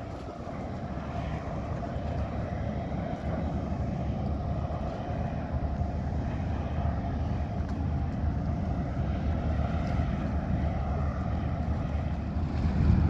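A ferry's engines giving a steady low rumble that slowly grows louder.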